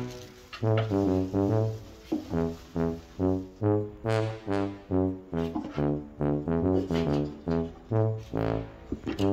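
Background music: short, detached brass notes, about three a second, in a bouncy comic tune.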